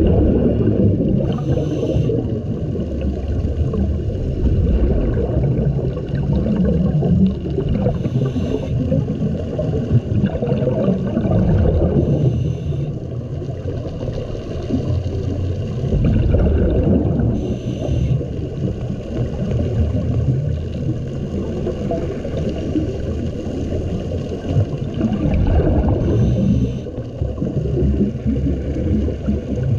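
Underwater sound of a scuba diver breathing through a regulator: short bursts of exhaled bubbles every several seconds over a steady low rumble of moving water.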